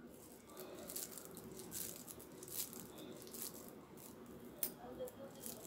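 Faint, irregular crackling and rustling of a crumbly ground-chapathi and jaggery laddu mixture being scooped and squeezed by hand in a steel plate, with one sharper click about four and a half seconds in.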